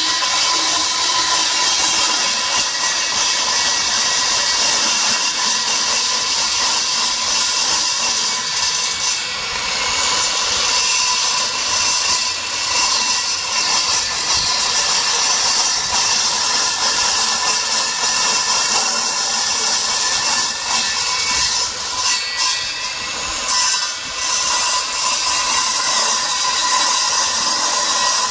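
Handheld electric circular saw running steadily as it cuts through a cast aluminium boat-propeller blade, a continuous high whine with brief dips in load as the cut goes along.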